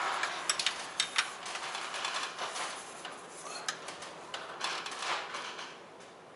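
Scattered metallic clicks and clinks of a wrench working on a motorcycle oil filter's wrench nut, which is starting to strip, over a steady background hiss.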